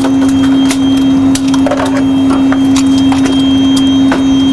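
A320 cockpit evacuation alarm sounding a loud, steady horn tone after the evacuation command, over a low rumble. Sharp clicks and knocks run through it as the pilots release their harnesses and move out of their seats.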